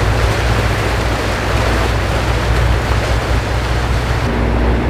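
Sportfishing boat's engines running steadily under way, a low drone beneath the rush of the propeller wash churning behind the stern. Near the end the rushing drops off and a steadier hum takes over.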